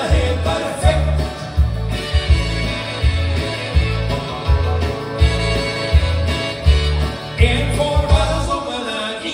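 A man singing into a microphone over a country-style backing track with a steady bass beat.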